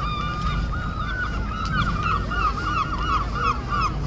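A gull calling: one drawn-out note, then a quick run of repeated calls at about five a second, over a steady low rumble.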